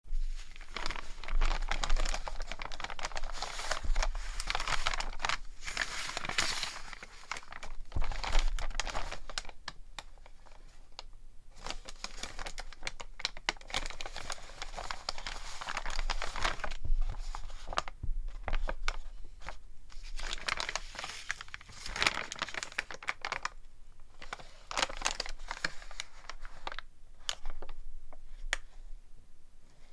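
Sheets of aged, stiff collage paper being handled, lifted and turned over: rustling and crinkling in irregular stretches with a few short lulls.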